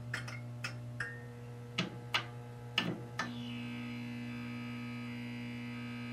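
Sound effect of a neon sign flickering on: a steady electrical mains hum broken by sharp crackling zaps during the first three seconds, then settling into a steady buzz.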